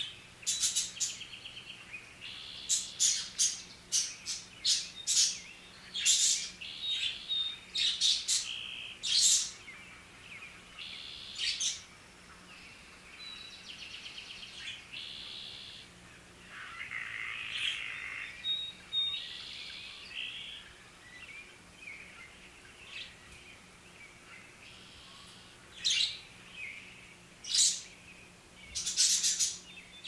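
Budgerigars chirping and chattering: quick runs of sharp, high chirps mixed with buzzy warbling. The chirping thins out for a few seconds in the middle and picks up again near the end.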